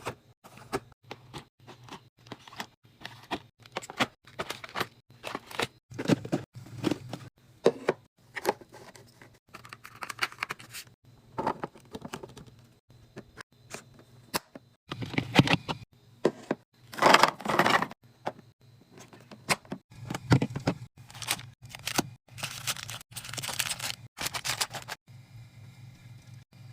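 Mini-fridge restocking noises: packaging crinkling and tearing, with many sharp clicks and knocks as items are handled and set in place. There are louder stretches of crinkling in the second half, and it goes quieter near the end.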